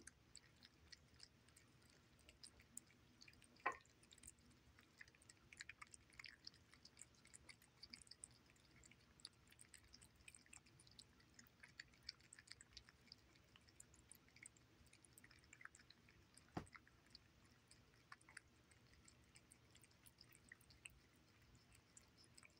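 Two cats eating wet food (salmon chunks in gravy) from saucers: faint, irregular wet chewing and lapping with many small clicks, and two sharper clicks, one about four seconds in and one about seventeen seconds in.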